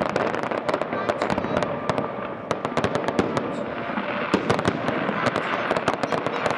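Aerial fireworks display: a dense, irregular run of sharp bangs and pops from bursting shells, with no pause.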